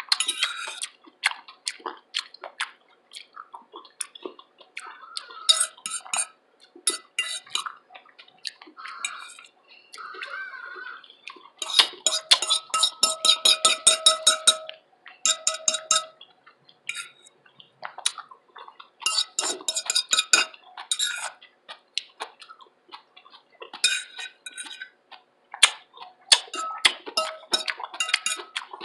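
Loud, close-miked eating sounds of a person chewing vegetables: clusters of rapid wet mouth clicks with short pauses between them, densest about halfway through, with clinks of utensils on dishes.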